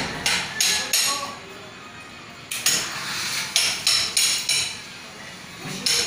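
Hammer blows on metal, ringing sharply, in quick runs of about three a second: four strikes, a pause, then about seven more and one near the end.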